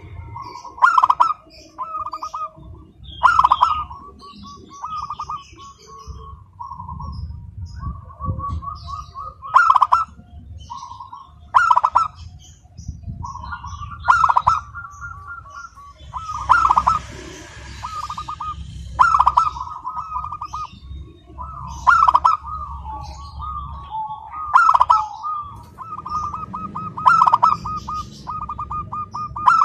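Zebra dove cooing without pause: rippling, rapidly pulsed song phrases, one every two to three seconds. Faint higher chirps of small birds come in between them.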